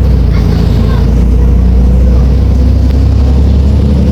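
Volvo B340M Euro V bus engine running with a steady low drone that holds one pitch.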